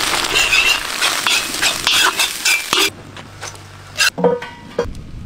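A metal utensil scraping and clinking against a wok while grated coconut and curry leaves are stirred, busy for about the first three seconds, then quieter with a few scrapes near the end.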